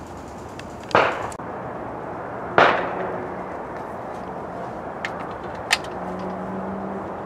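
Two shotgun shots about a second and a half apart, each a sharp crack with a short echoing tail, followed by a couple of lighter sharp clicks about five seconds in.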